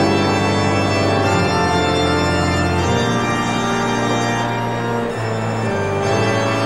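Organ music: held chords over a bass line that steps to a new note every second or two.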